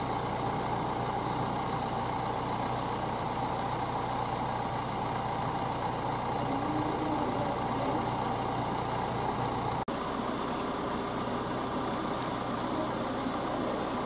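Car engine idling steadily, a constant hum with a momentary break about ten seconds in.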